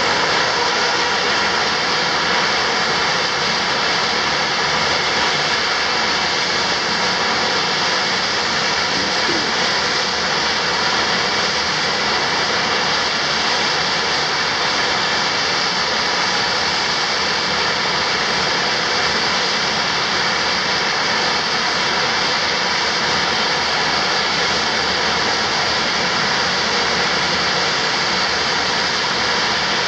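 Dornier 228 twin-turboprop engines running steadily at idle on the ground: a loud, even turbine whine and rush with one constant high tone, no change in power.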